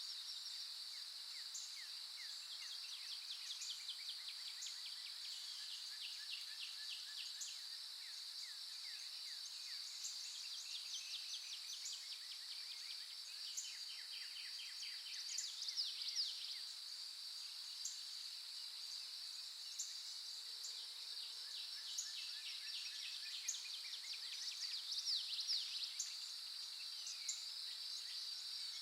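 Dawn chorus of forest songbirds, with many short chirps and rapid trills over a steady, high insect drone. A couple of louder bird phrases come about halfway through and again near the end.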